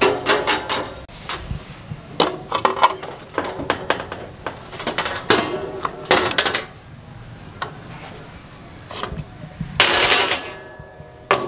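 Metal clinking and clattering of a hinged wire grill basket and a knife knocking and scraping against a steel tray while grilled fish is freed and lifted out, in several bursts of sharp clicks with short ringing, and a longer scrape about ten seconds in.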